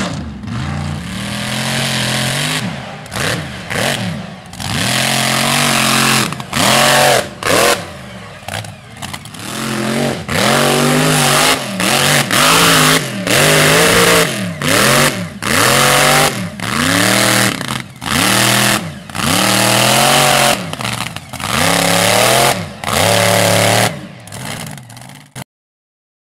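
Mud bog truck's engine revved hard over and over, its pitch climbing and dropping away in short bursts about once a second as it drives through the mud pit. The sound cuts off suddenly near the end.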